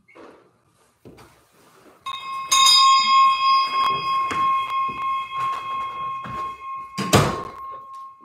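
A small bell rung about eight times in quick succession, its clear ringing tone carrying on between strikes, with a last, louder strike about seven seconds in.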